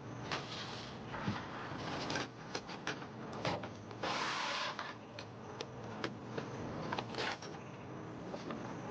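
Objects being handled and set down: a run of light clicks and knocks, with a short rustling hiss about four seconds in.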